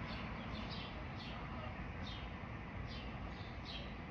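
A bird chirping over and over: short, falling chirps about twice a second, over a steady background hiss.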